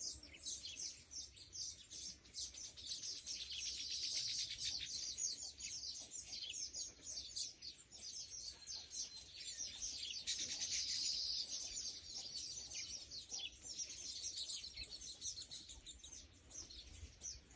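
Small birds chirping and twittering in a dense, unbroken stream of rapid high notes, swelling a little twice.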